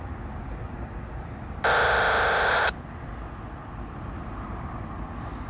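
Locomotive air horn sounding one short blast of about a second, starting and stopping abruptly, over a steady low rumble.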